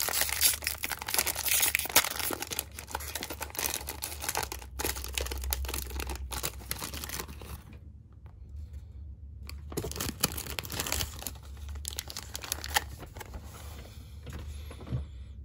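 A biscuit pack's wrapper being torn open and crinkled by hand: dense crackling at first, thinning out, with a short lull about eight seconds in before more scattered rustling.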